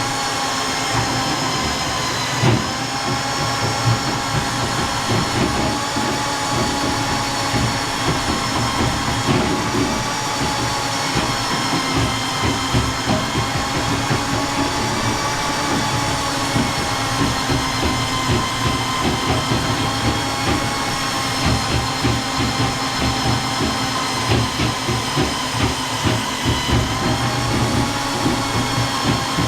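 RIDGID K-39 electric drum drain snake running, its motor whine climbing to speed at the start, then holding with slight sags in pitch as it works, over an irregular rattle of the spinning cable in a hair-clogged bathtub drain.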